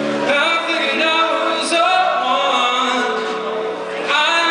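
A man singing held notes with vibrato into a microphone, accompanied by his own acoustic guitar.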